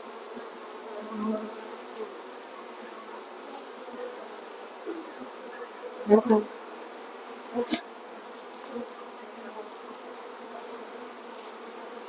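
Honeybees humming steadily around an open nucleus hive as a frame covered in bees is lifted out and held up. A few brief knocks come between about six and eight seconds in.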